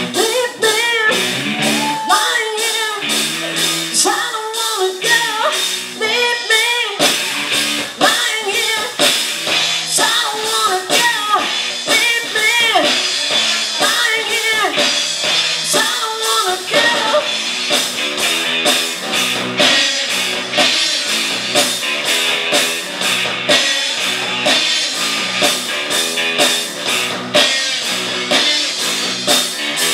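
Live rock band: a woman singing lead over electric guitars, bass guitar and a drum kit keeping a steady beat.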